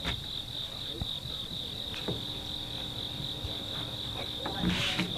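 Steady high-pitched insect chorus, with a few faint knocks.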